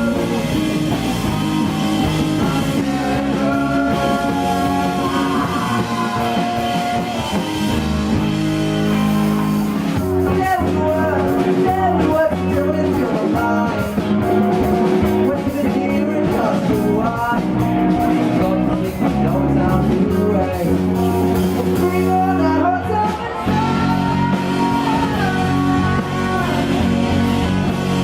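Rock band playing with electric guitar, drum kit and a singing voice, loud and continuous.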